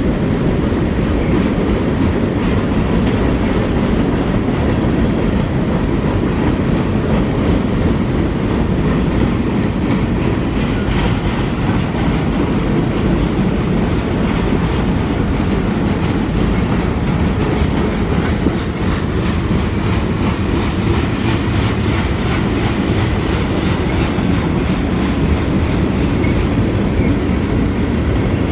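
Freight train cars rolling past at steady speed: a continuous loud rumble of steel wheels on rail, with a regular clickety-clack of wheels over rail joints that grows clearer after the first several seconds.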